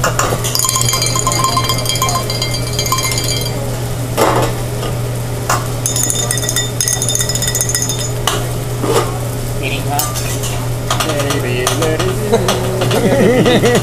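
Fried rice sizzling on a hibachi flat-top griddle as the chef works it with metal spatulas, with sharp clicks of spatula on steel. Two stretches of high metallic ringing run over the sizzle.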